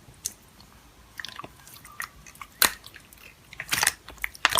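Slime being squeezed and poked by hand, giving scattered sticky clicks and crackles, the sharpest a single pop about two and a half seconds in and a quick cluster near the end.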